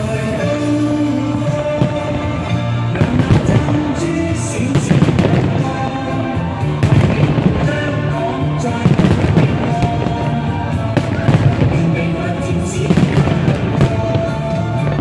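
Aerial fireworks bursting in a dense, continuous barrage of bangs and crackle, with music playing steadily underneath.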